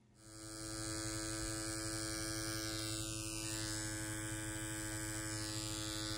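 Corded rotary permanent-makeup pen machine buzzing steadily as it shades an eyebrow. The buzz rises in over the first second, then holds at one pitch.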